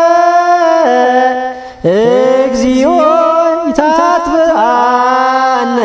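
A single voice chanting Ge'ez liturgical prayer, drawing out long held notes with small turns and wavers in pitch. Just under two seconds in the voice breaks off briefly, then slides up into the next drawn-out note.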